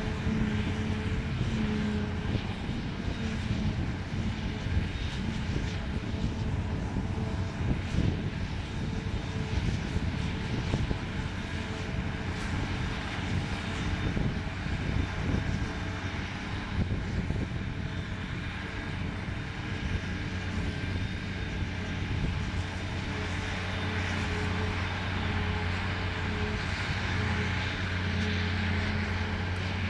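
Large diesel engine of harvesting machinery running steadily under load, a continuous droning hum.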